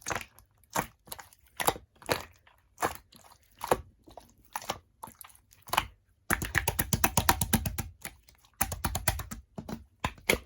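Jelly-textured mixed slime being pressed and squished by hand, giving sharp sticky clicks about twice a second. About six seconds in comes a quick run of rapid crackling pops, and a shorter one near nine seconds, then a few last clicks.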